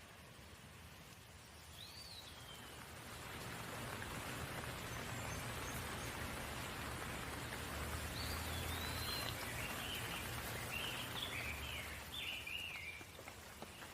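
Steady rain falling, swelling about two seconds in and easing near the end, with a few short bird chirps over it, one early and a string of them in the second half.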